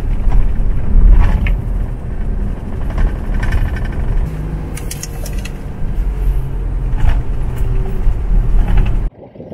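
Four-wheel drive travelling along a sandy dune track, heard from inside the cabin: a steady low rumble of engine and tyres, with scattered short rattles and knocks over the bumps.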